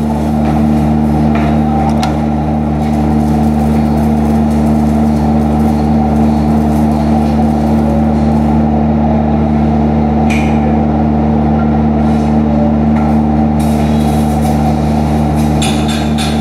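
Steady, loud machine hum made up of several fixed low tones, the running noise of welding-shop equipment, with a few light clicks and knocks from handling gear.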